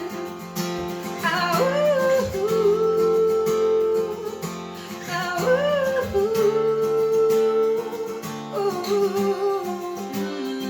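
A woman sings long held notes without words over a strummed acoustic guitar.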